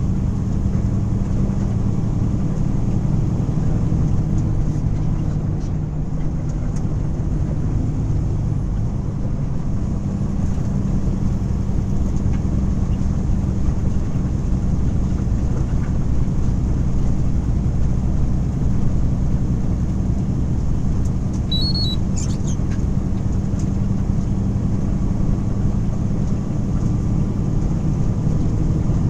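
Steady engine drone and tyre-on-road noise of a vehicle cruising at an even speed, heard from inside the cab.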